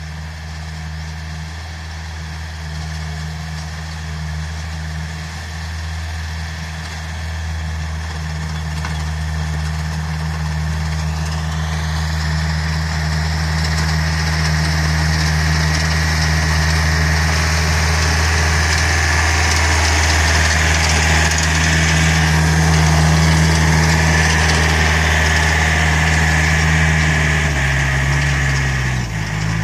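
Yanmar EF454T tractor's diesel engine running steadily as it pulls a disc ridging plough through the soil, growing louder as it comes closer. Near the end the engine note drops.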